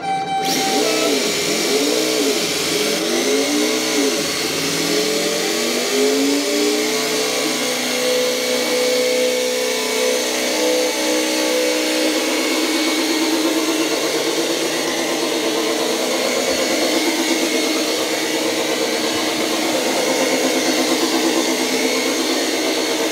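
Remote-control General Lee toy car doing a burnout: its drive whirring and wheels spinning against the tiles with a steady hiss. The pitch rises and falls repeatedly for the first several seconds as the throttle is worked, then holds steady.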